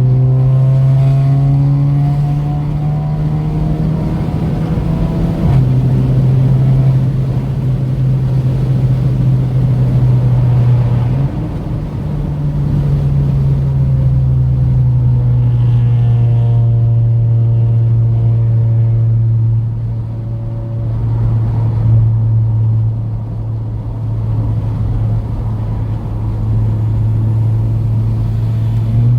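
Ford Escape driving through a tunnel with a loud, steady low drone: the noise the car makes there. The drone steps slightly in pitch a few times, and fainter tones slide up and down over it.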